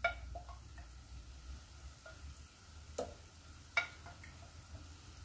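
Lemon sauce sizzling faintly in a pan on the heat, with a few sharp clicks of a utensil or lid against the cookware.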